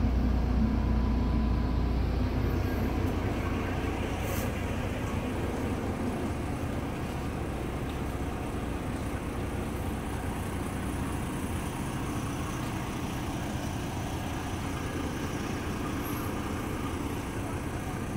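Diesel bus engine idling with terminal traffic noise, a low rumble that is strongest for the first few seconds and then eases to a steady hum.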